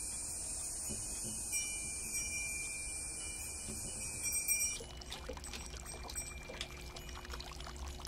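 A steady high-pitched drone of summer insects. About five seconds in it cuts off and gives way to water trickling and splashing into a spring-fed pool.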